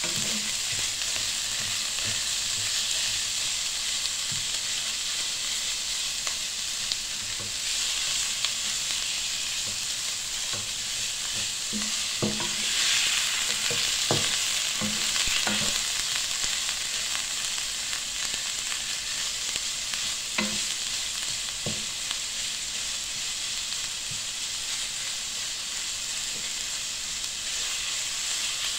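Ground beef sizzling in hot oil in a non-stick frying pan as a wooden spoon stirs and breaks it up, with a steady hiss and a few knocks of the spoon against the pan around the middle.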